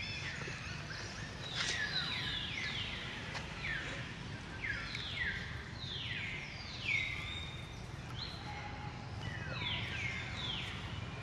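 Newborn macaque crying: a run of short, high-pitched calls, each sliding down in pitch, coming in clusters of two or three, over a faint steady outdoor hum.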